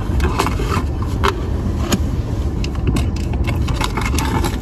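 Car engine idling, heard from inside the cabin as a steady low rumble, with scattered light clicks and rustles.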